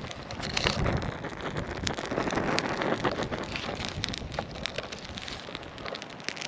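Wind gusting through a winter forest, a gust swelling about a second in and easing off toward the end, with scattered sharp crackles and ticks throughout.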